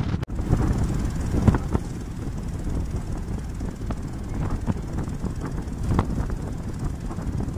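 River ferry under way: a steady low rumble of its engine mixed with water rushing along the hull, with a few faint ticks on top.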